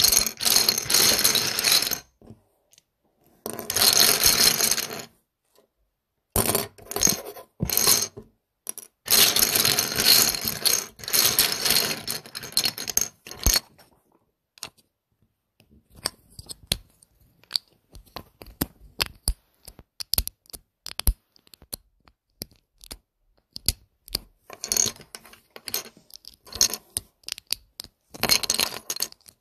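Loose plastic LEGO bricks clattering and clicking against each other, in dense rattling bursts of a second or several, with pauses and scattered single clicks between them.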